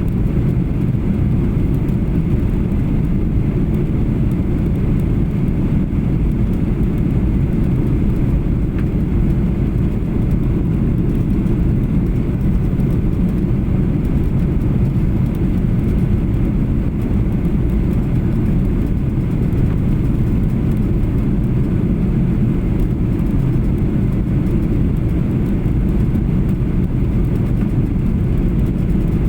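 Steady cabin noise of a Boeing 737-800 in flight: an even low rumble of the engines and air rushing past the fuselage, with no change in pitch or level.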